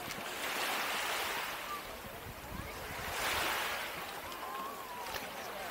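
Small waves washing onto a sandy shore, swelling and fading about every three seconds.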